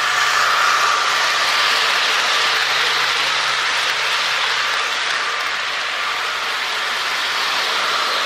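HO-scale model trains running on plastic roadbed track: a steady whir of the locomotive motors with the rattle of wheels on the rails, loudest about a second in as a locomotive passes close by.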